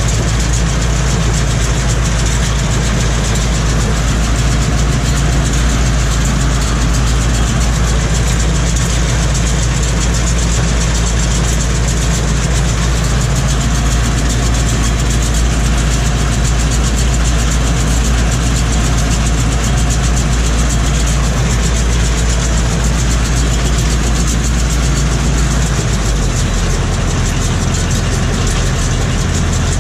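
Tractor engine running steadily inside the cab while pulling a SIPMA PS 1312 Power Cut round baler baling hay. The low engine note shifts near the end.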